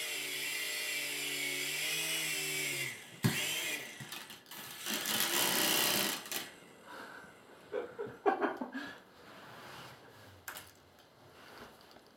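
Small toy helicopter's electric motor and rotor whirring with a slightly wavering pitch, cut off by a sharp knock about three seconds in. Scraping, rubbing and several knocks follow.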